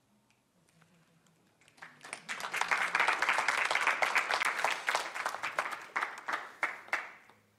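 Audience applauding, starting about two seconds in and dying away near the end.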